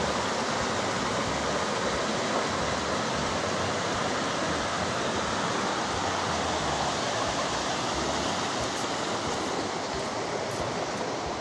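Shallow river rushing over stones and a riffle: a steady, loud hiss of running water.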